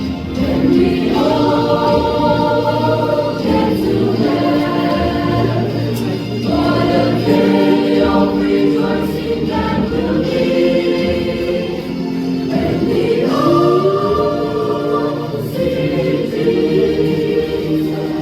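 A choir singing a sacred anthem in long held phrases, with several voices moving together and brief breaths between phrases.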